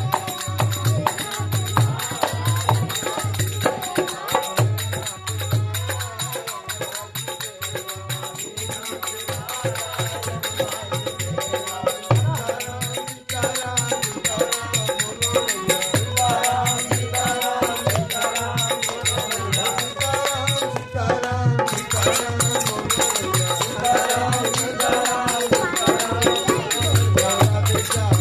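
Bhajan music: a voice singing over a steady, even drum beat with jingling percussion.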